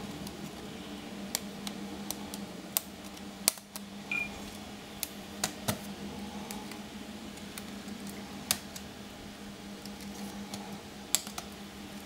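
An Asus X452 laptop's plastic case being handled, lifted and tilted: about a dozen irregular light clicks and knocks, the loudest about three and a half seconds in, over a steady low hum.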